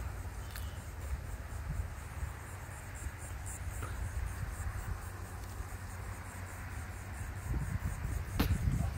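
Insects chirping in a steady, even pulse, high in pitch, over a low rumble.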